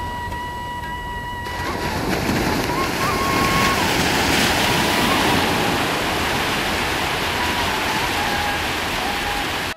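Ocean surf breaking and washing up a sandy beach, a steady rush that swells and grows louder a couple of seconds in. A faint melody of long held notes runs over the surf.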